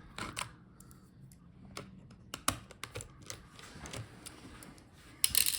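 Scattered small clicks and taps of a screwdriver working on the laptop's battery screws, with a brief louder scrape near the end.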